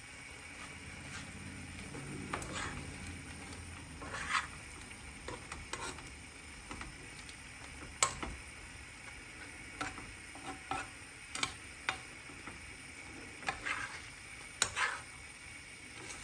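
Metal spoon stirring shrimp and mussels in a frying pan, knocking and scraping against the pan in irregular clinks, over a faint steady sizzle of the simmering butter sauce.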